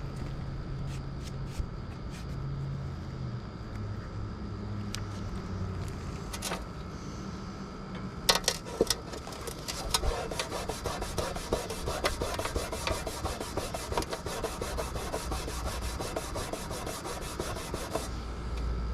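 A hand rubbing a vinyl decal down onto a lawn mower's metal shield. After a few sharp clicks around the middle, quick back-and-forth rubbing strokes run on until near the end.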